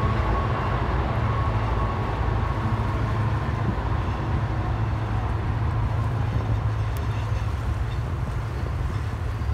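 Diesel-hauled freight train passing, a steady low rumble. A faint high squeal in the first few seconds fades away, and the sound eases slightly toward the end.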